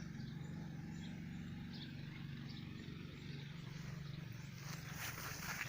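Birds chirping faintly in short calls over a steady low hum like a distant engine, with a brief rustling burst about five seconds in.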